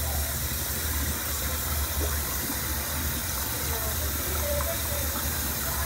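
Steady background noise: an even hiss with a low hum under it, and faint voices in the background.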